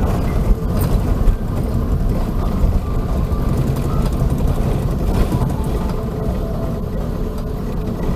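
Airbus A380 cabin noise on the ground just after landing: a steady, loud low rumble of the aircraft rolling, with its Rolls-Royce Trent 970 engines running.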